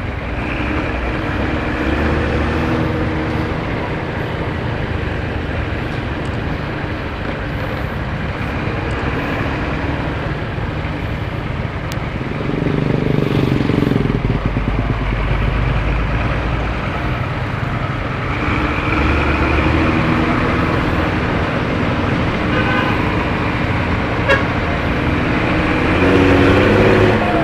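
Intercity bus's engine and exhaust running steadily, the exhaust with the deep, snoring note it is known for. Horn blasts sound several times over it, and the engine note swells louder about halfway through and again near the end.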